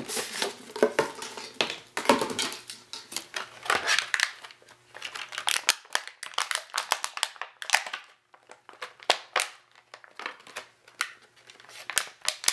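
Packaging being handled and opened: crinkling and rustling with many small irregular clicks and taps as a boxed toy is unpacked.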